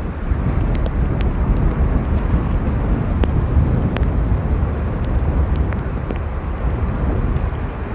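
Boeing 787-8 jet engines rumbling steadily, mixed with strong wind buffeting the microphone. Scattered sharp ticks of raindrops sound throughout.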